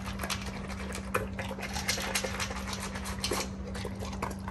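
A Bernese mountain dog eating dry kibble from a stainless steel bowl: a quick, uneven run of crunches and clinks as he chews and noses the food against the metal.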